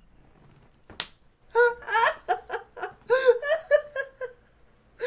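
A person laughing in a run of short, high-pitched bursts that starts about a second and a half in and lasts about three seconds, after a single sharp click.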